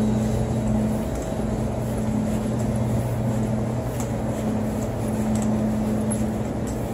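A steady low mechanical hum over general city noise, holding an even level throughout.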